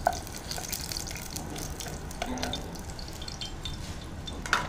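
Hot cooking oil left in the pan after frying brinjals, crackling and sizzling steadily, with a sharp utensil knock right at the start and another near the end.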